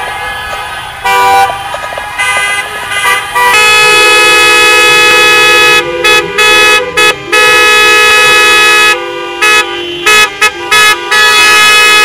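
Many car horns honking together in a protest convoy: short toots for the first few seconds, then long held blasts of several horns at different pitches at once, broken by a few brief gaps.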